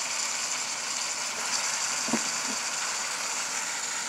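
Chicken pieces and chopped onion frying in oil in a pot, a steady sizzle.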